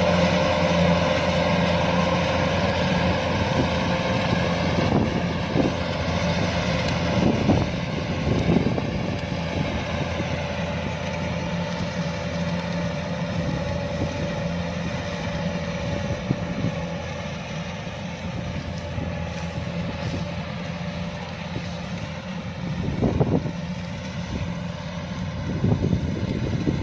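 Kubota DC-105X combine harvester running steadily as it cuts and threshes rice, with a few brief louder knocks, two about a quarter of the way in and another near the end.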